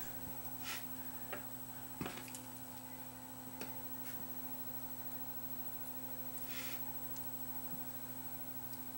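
Faint, scattered light clicks and a short scrape of small cassette-deck parts being handled during reassembly, over a steady low hum.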